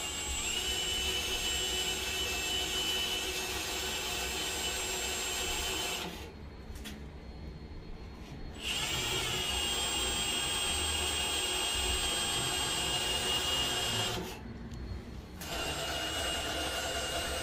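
Cordless drill running at speed as its bit cuts into a foam deer taxidermy form, a steady motor whine. It runs three times, stopping briefly about six seconds in and again about fourteen seconds in, with a short rise in pitch each time it starts up.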